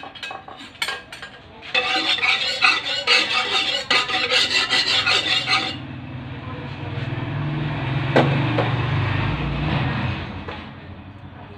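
Metal utensil scraping and rubbing around the inside of a wok, spreading cooking oil. A few clicks come first, the scraping is loudest from about two seconds in to about six seconds in, and then it goes on more quietly over a low steady hum.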